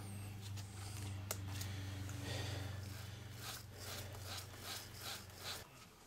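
Faint handling noise of gloved hands on the plastic carpet-cleaner housing: soft rustles and a few light ticks, over a steady low hum that cuts out near the end.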